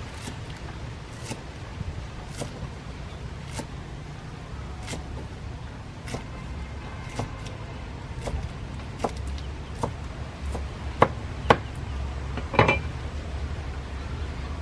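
Cleaver chopping leafy greens on a wooden chopping board: irregular knocks of the blade striking the wood, about one a second at first and quicker later, with the loudest strikes near the end. A steady low rumble runs underneath.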